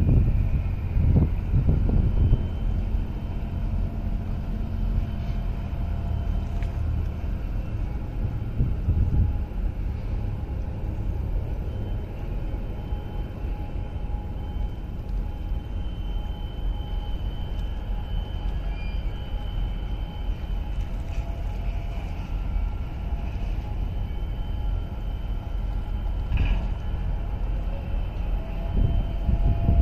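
Steady low rumble of engines across the harbour from the container ship, its tug and the port, with faint steady machine whines above it. Wind gusts on the microphone near the start and again near the end.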